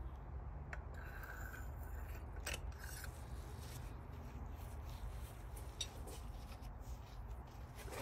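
Faint rubbing and scraping with a few light clicks as spark plugs and tools are handled, over a steady low hum.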